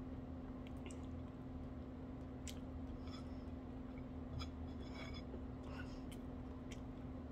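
Eating by hand: soft wet chewing and small scattered clicks as fingers pick food from a glass dish, over a steady low hum.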